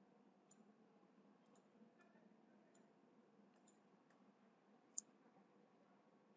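Several faint computer mouse clicks, scattered through near-silent room tone, with one sharper click about five seconds in.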